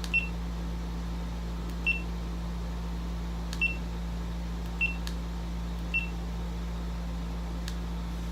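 GoPro HERO7 Black camera giving five short, high electronic beeps one to two seconds apart, with a few faint clicks between them. A steady low hum runs underneath.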